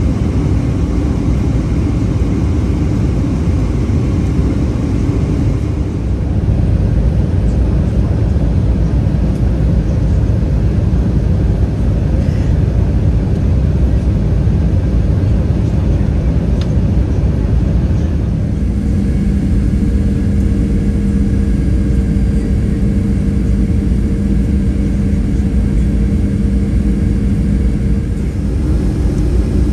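Cabin noise inside a Boeing 737-400 in flight: the steady rush of air and the drone of its CFM56-3 engines. About two-thirds of the way through, a steady two-pitched hum joins the noise.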